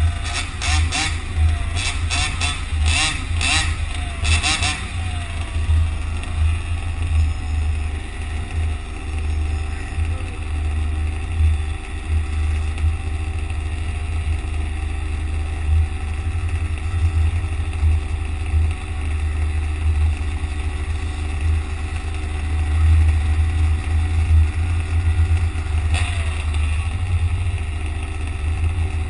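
Street traffic with a heavy, uneven low rumble on the microphone throughout, and a run of short clicks in the first few seconds.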